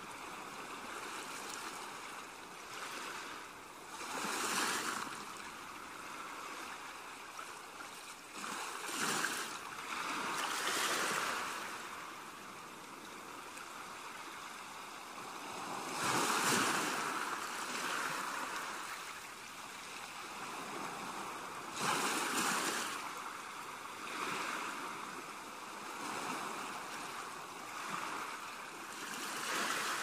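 Small, calm sea waves washing onto a sandy beach: a steady hiss of surf that swells and fades every few seconds as each wave breaks and runs up the sand.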